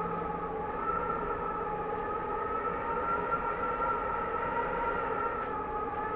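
Cold winter wind howling and whistling, its pitch wavering slowly. A low hum fades out about two seconds in.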